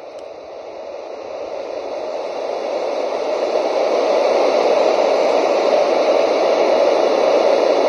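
Rohm travel white noise machine playing a steady white-noise hiss, growing louder over the first four seconds as its volume is turned up, then holding steady.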